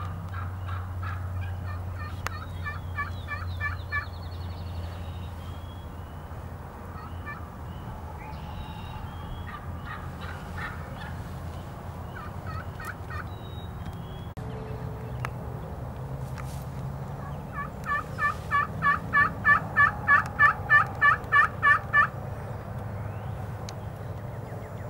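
Turkey yelping: short runs of yelps in the first few seconds and again midway, then a long run of about fourteen yelps, three or four a second, growing louder near the end.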